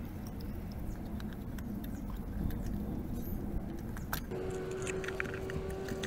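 Small metallic clicks and light rattles of parts being handled and fitted inside an engine's distributor, over a low rumble. A steady hum with a few held tones comes in about four seconds in.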